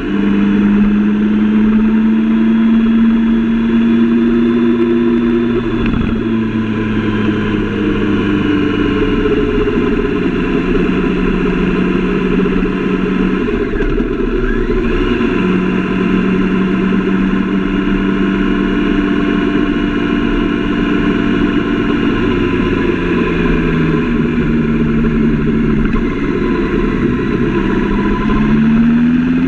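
Sport motorcycle's engine running at a steady pitch while riding at road speed, with rushing wind noise; the revs drop briefly about halfway through and climb again near the end.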